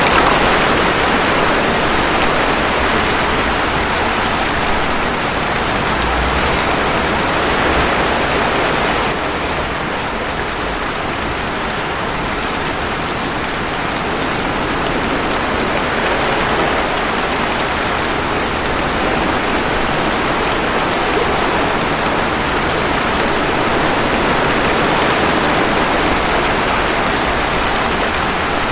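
Steady rain falling, mixed with ocean waves washing ashore, a dense even hiss that swells and eases slowly. About nine seconds in the hiss turns abruptly duller and slightly quieter.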